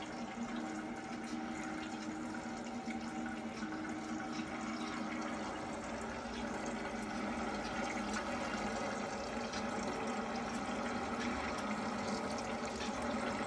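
Oil rain lamp running on water: steady fine pattering and trickling as drops run down the lines and fall into the brass basin, over a low steady hum from its small recirculating pump.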